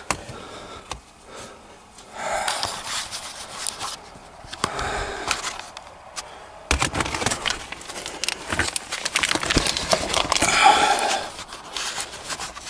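A man breathing hard and giving short grunts as he crawls through a cramped space, with rustling, scraping and knocks from his movement and the handheld camera, thickest in the second half.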